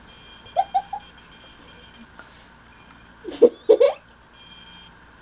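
Smartphone on speakerphone sounding a call's ringing tone, a steady electronic tone lasting about two seconds and coming back briefly near the end, before the call is answered. Short bursts of giggling come in between.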